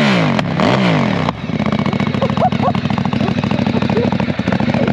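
Ducati Diavel 1260's 1262 cc V-twin blipped twice in the first second or so, each rev rising and falling, then settling into a steady idle with an even pulsing beat.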